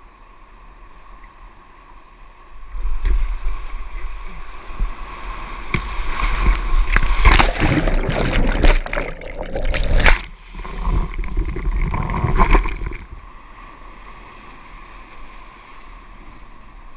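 Seawater surging and splashing around a whitewater kayak running a rock-garden feature: a loud rush of water that builds about two and a half seconds in, comes in several surges with a brief dip near ten seconds, and dies away about thirteen seconds in.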